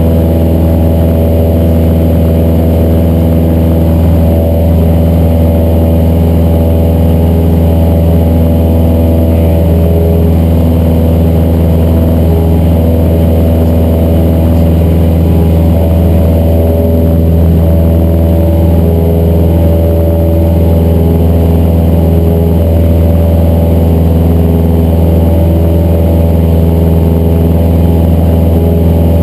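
Cessna 172's piston engine and propeller running at a steady, loud drone in flight.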